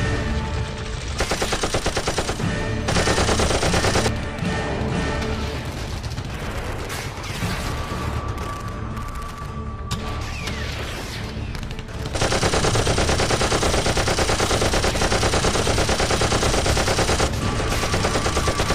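Film battle soundtrack: heavy automatic gunfire in rapid sustained bursts over music. There are two bursts in the first four seconds, then a denser, more mixed stretch of battle noise. A long unbroken burst starts about twelve seconds in and lasts some five seconds.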